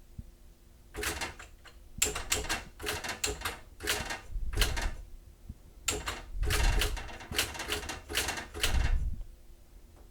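Xerox Memorywriter 6010 electronic daisy-wheel typewriter typing from its keyboard: bursts of rapid, clattering character strikes from about a second in to near the end, over a faint steady hum.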